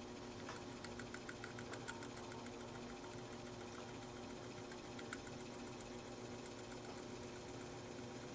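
Vintage 1960s NuTone exhaust fan running, its electric motor giving a steady hum. A run of quick light ticks comes about a second in, with a stray click or two later.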